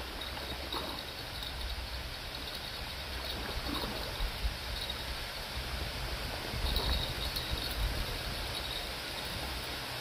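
Outdoor riverbank ambience: a steady wash of river water lapping at a sandy shore, with wind gusting on the microphone as an uneven low rumble.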